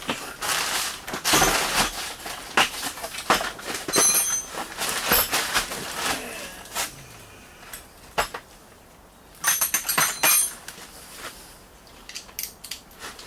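Metal hand tools clinking and knocking irregularly as sockets, a wobble extension and a ratchet are handled, with a few brief metallic rings.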